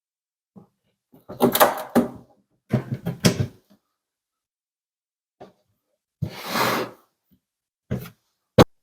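Knocks and scraping from handling the wooden parts of a small drawer cabinet being reassembled, in several separate bursts. A longer scrape comes about six seconds in, then two sharp clicks near the end.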